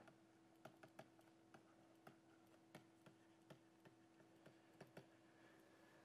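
Faint, irregular clicks and taps of a stylus on a pen tablet during handwriting, a dozen or so short ticks over a faint steady hum.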